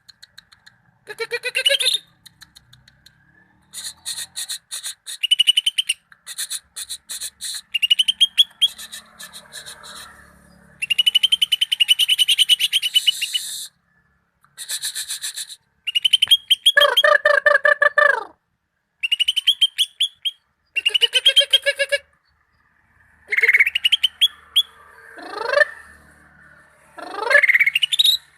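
Cucak ijo (green leafbird) singing: phrases of rapid chattering, trilled notes broken by short pauses, with two quick rising whistled sweeps near the end.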